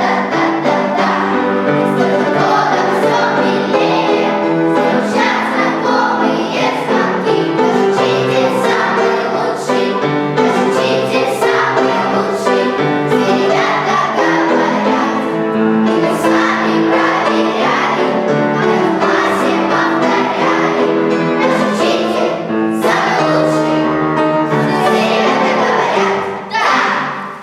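A children's choir singing in unison over an instrumental accompaniment; the music dips and ends near the end.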